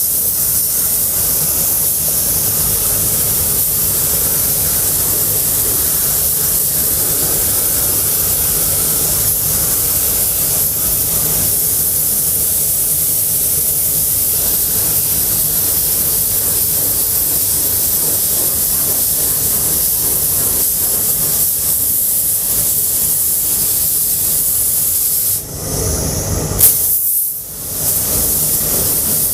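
Pneumatic paint spray gun spraying a steady, loud hiss of air and paint, with a low steady hum underneath. Near the end the spray stops for a couple of seconds, with one short sharp sound, then starts again.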